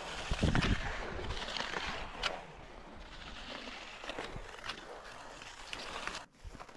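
Cross-country skis sliding and scraping over a packed snow trail, with the sharp click of ski poles planting now and then and a brief low thump about half a second in. The sound drops off suddenly near the end.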